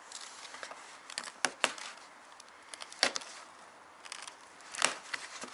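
A small knife blade scraping and chipping thick old primer and paint layers off a plastic car bumper: a handful of separate sharp scrapes and clicks as flakes break away, the loudest about one and a half, three and five seconds in.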